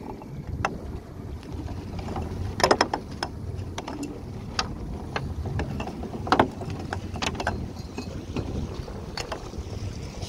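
Small open fibreglass boat underway: a steady low motor rumble, with irregular sharp knocks and slaps as the hull meets the choppy water, the loudest twice in the middle.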